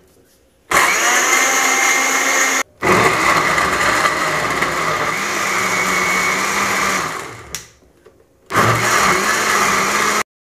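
Electric countertop jug blender puréeing chopped tomatoes, peppers and onions with a little water. It runs in three bursts: a short one, a longer run whose motor winds down to a stop, then a third run that spins up and cuts off abruptly near the end.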